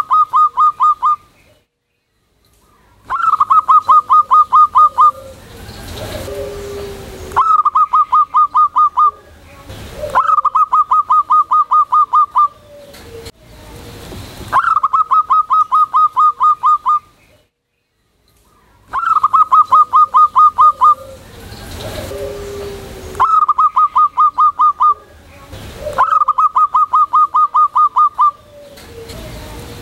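Zebra dove (perkutut) in full loud song: phrases of rapid staccato cooing notes, about five a second, each phrase lasting about two seconds and repeated every few seconds, some eight times over.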